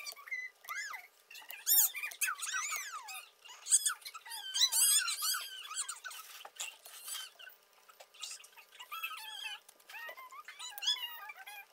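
Many short, high-pitched squeaky calls from small animals, rising and falling in pitch and often overlapping, with brief gaps.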